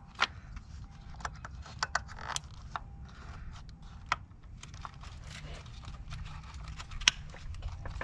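Irregular light metallic clicks and clinks from hand tools and parts being handled, over a low steady rumble, with a sharper click about a second in and another near the end.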